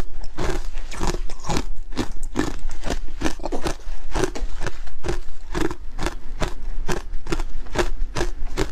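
Hard ice dusted with matcha powder being chewed, a rapid run of sharp crunches between the teeth, about three a second.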